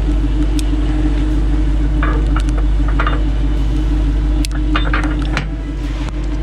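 A vehicle engine idling steadily, with scattered short clicks and knocks over it.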